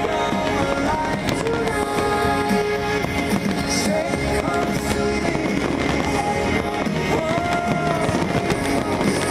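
Music plays steadily throughout, with fireworks bursting and crackling over it now and then.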